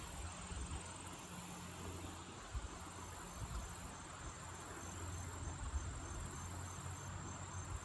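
Quiet outdoor ambience of insects calling, a very high-pitched buzz that comes and goes every second or so, over a faint steady low hum.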